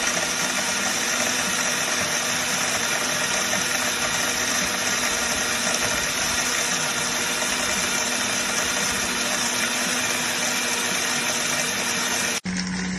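Tefal Dynamix Cook high-speed cooking blender running steadily, its motor and blades churning a jug of liquid. The sound cuts off sharply about twelve seconds in, and a lower hum follows briefly.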